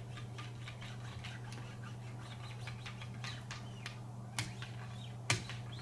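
Wicked Edge guided sharpener's 1-micron abrasive paddles stroked along a Benchmade Pagan blade: quick light strokes, several a second, that stop a little past halfway. Then two sharp clicks.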